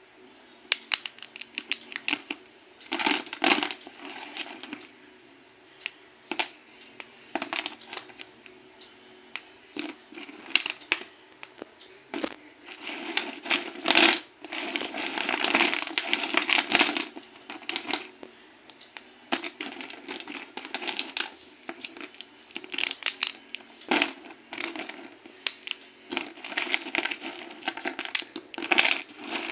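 Dry clay being snapped and crumbled by hand: a run of sharp cracks and brittle crunches, some single, some in dense clusters.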